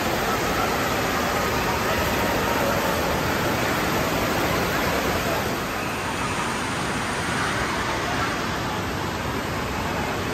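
Steady rushing of water from shallow-pool fountain jets, mixed with the general din of an indoor water park and faint distant voices; a little quieter from about six seconds in.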